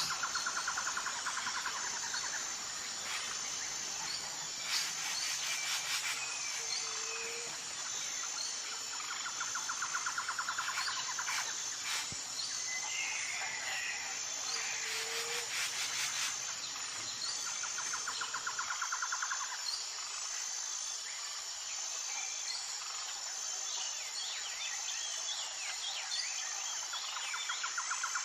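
Birds chirping and calling over a steady, high-pitched insect drone. A pulsed trilling call comes back every several seconds.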